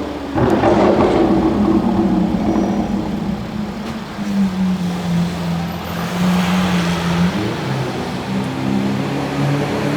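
Car engine and exhaust running loud, its pitch rising and falling with the revs, with a sudden loud burst just after the start and a steadier note in the middle.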